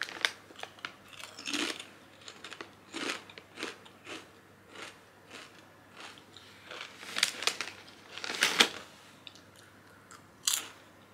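Potato chips being bitten and chewed close to the microphone: irregular crisp crunches, with a few louder ones in the second half.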